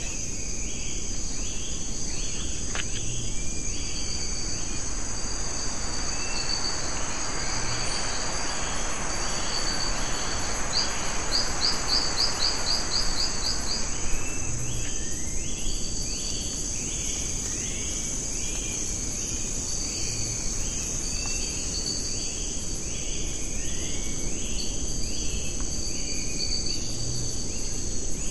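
Tropical rainforest ambience: a steady high-pitched insect drone, with a short chirping call repeated about twice a second. Around the middle a stretch of hissing noise rises and fades, and a rattle of rapid ticks sounds over it.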